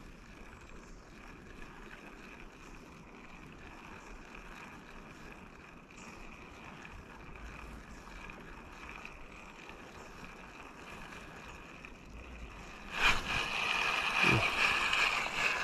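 Faint, steady river water running; about thirteen seconds in a much louder rush of water noise sets in and lasts to the end.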